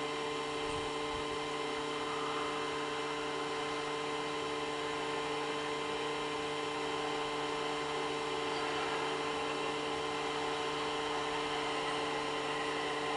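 Steady, unchanging hum made of several constant tones from an AtmosFX WindowFX projector running a ghost effect.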